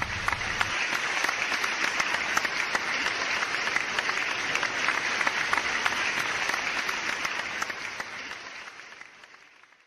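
Crowd applauding, a dense patter of many hands clapping, which fades out over the last two seconds.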